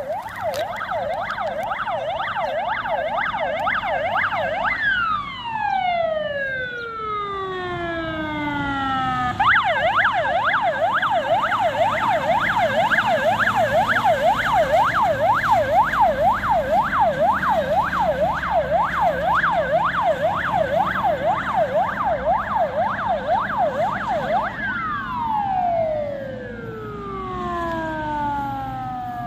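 Yelp siren of an AC-40 Ural fire tanker truck, sweeping rapidly up and down about two and a half times a second. Twice it is cut and winds down in a long falling glide; between the two, it starts yelping again.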